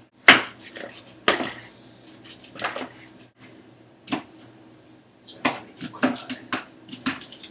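Kitchen utensils and cookware clattering: about a dozen irregular sharp clinks and knocks of dishes, pans and cutlery as food preparation begins, over a faint steady low hum.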